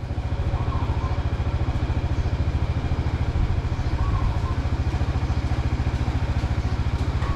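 A vehicle engine idling steadily close by, with an even, fast low pulse.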